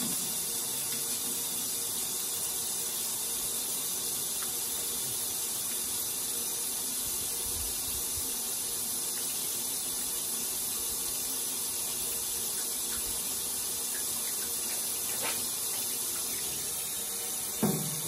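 Garden hose with a spray nozzle running water into the tub of a 1950s THOR washing machine/dishwasher combo, a steady hiss of water splashing onto the tub floor as it is filled for a leak test.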